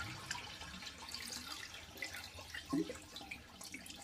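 Water trickling and dripping faintly as a toilet tank is drained through its flush valve, with a brief louder sound just under three seconds in.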